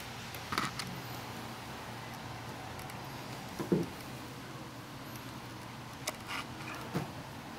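A few soft knocks and thumps from a kitten moving and jumping about on and off a printer, the loudest a low thump about halfway through, over a steady low hum.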